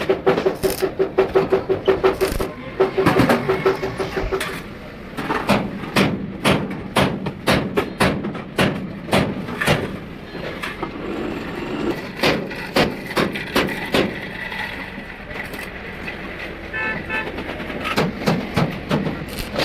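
A rapid, irregular series of knocks, several a second, with a steady hum under the first few seconds and a short run of pulsing beeps near the end.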